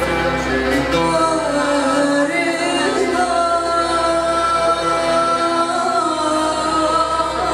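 A woman singing live into a microphone with an instrumental ensemble of violin, accordion, saxophone and percussion. From about three seconds in she holds long, steady notes.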